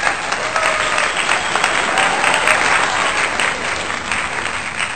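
A crowd applauding: many hands clapping steadily, at a loud level.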